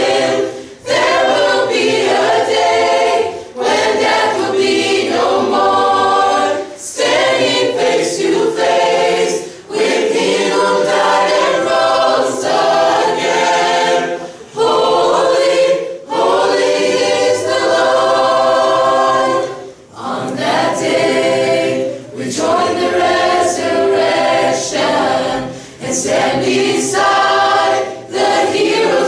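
Mixed-voice high school choir singing unaccompanied, in short phrases of a few seconds each with brief breaths where the sound drops away between them.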